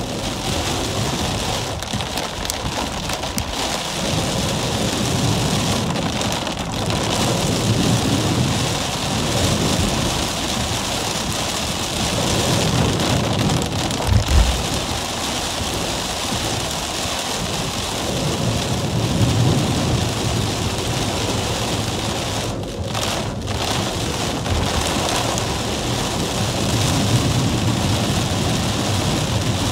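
Heavy rain drumming on a car's roof and windshield, heard from inside the cabin while driving on a wet road, with a steady low rumble underneath. A brief low thump comes about halfway through.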